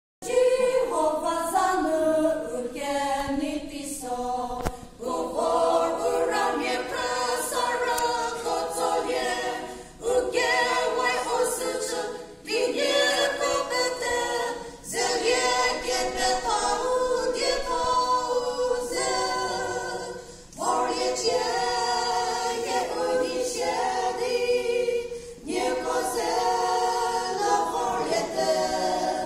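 A small group of women singing a gospel song a cappella in harmony. The lines come in phrases of a few seconds, with short breaks between them.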